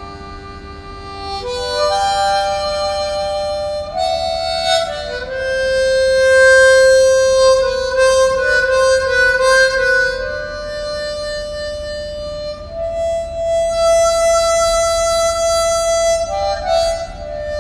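Solo harmonica playing a slow, sad melody of long held notes, sometimes two notes together.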